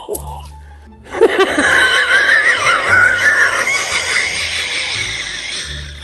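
A man's high-pitched, strained wheezing cough, starting about a second in and fading over the last couple of seconds, over background music.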